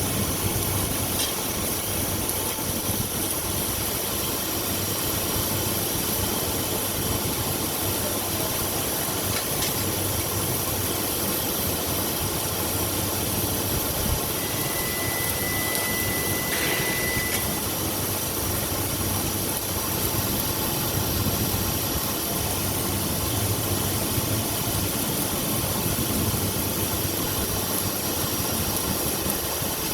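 Steady machinery hum and hiss from a submerged arc hardfacing setup. A brief high steady tone sounds about halfway through for a few seconds.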